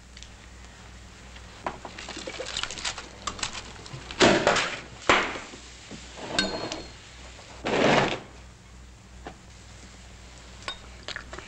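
Glass clinking and knocking as a champagne bottle is lifted from a metal ice bucket and handled with a coupe glass. There is a brief ringing clink about six seconds in, and several louder rustling bursts around the four- and eight-second marks.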